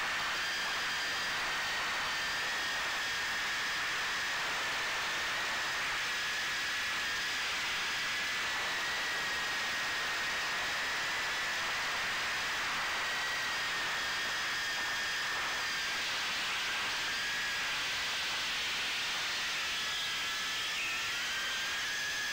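Micro quadcopter's Emax 1106 brushless motors spinning 2-inch props inside ducts, heard from the onboard camera in flight: a steady high whine whose pitch shifts slightly up and down, over a constant hiss.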